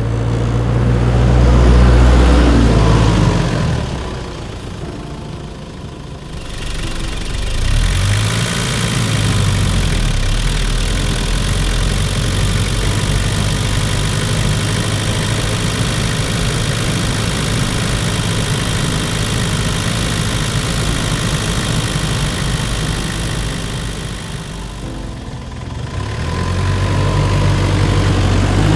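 Nissan Terrano II's 2.7-litre four-cylinder turbodiesel running through a series of clips: loud low engine with rising and falling pitch at the start and again near the end, and a long steady stretch between them with a strong hiss across the range.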